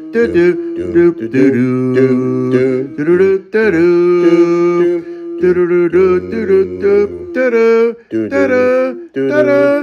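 Voices in long held, chant-like notes, a low voice and a higher one sounding together, in phrases of one to two seconds with short breaks between them.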